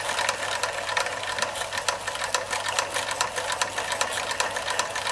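Doll 365 twin-cylinder toy steam engine running on live steam: a rapid, even clicking from the cranks and rods over a steady hiss.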